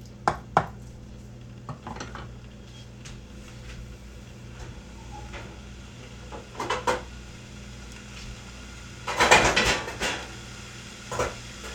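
A wooden spatula knocks against a frying pan a couple of times, then pots, pans and lids clatter now and then. The loudest clatter comes about nine seconds in.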